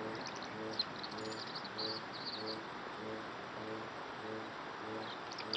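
Small bird chirping in quick, high trills through the first half and again briefly near the end. Under the chirps a low note repeats about twice a second over a steady hiss.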